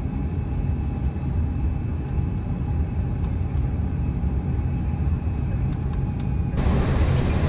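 Steady low rumble of an Airbus A330-300 airliner heard from inside the cabin during the final approach and touchdown, with a faint steady whine above it. About a second before the end the sound turns abruptly brighter and hissier.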